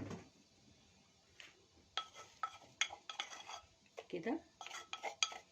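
A metal spoon clinking and scraping against a cooking pot as minced garlic goes in. It is a run of sharp, ringing clinks starting about two seconds in.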